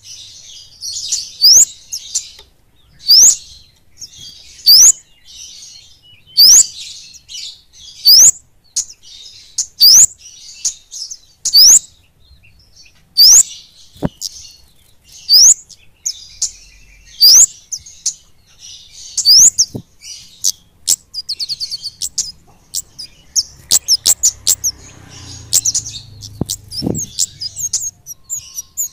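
Orange-bellied flowerpecker (kemade, cabai bunga-api) calling: sharp, high, upward-sweeping notes about every one and a half seconds, breaking into quicker rattling runs of notes in the last third.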